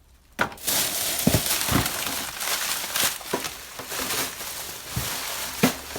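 Plastic crinkling and rustling as items are handled and sorted into a plastic trash bag, starting about half a second in, with a few light knocks among it.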